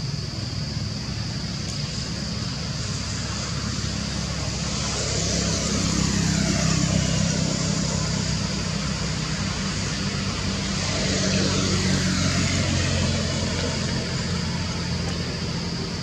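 Engine noise of motor vehicles passing, a low hum that swells twice, over a steady high-pitched buzz.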